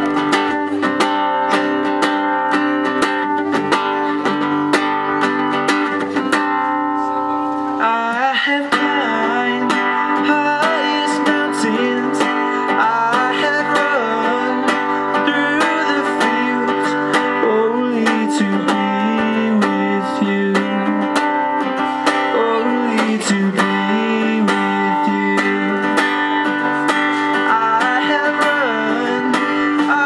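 Acoustic guitar music, with a voice singing over it from about eight seconds in.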